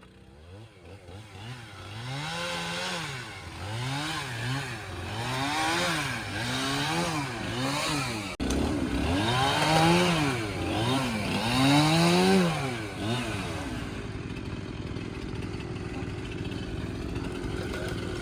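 Two-stroke chainsaw engine revving up and down over and over, its pitch rising and falling about once a second, then settling into a steadier, quieter run for the last few seconds.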